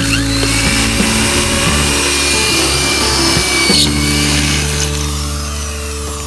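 A power tool working on sheet metal, a dense steady hiss, over background music with held notes.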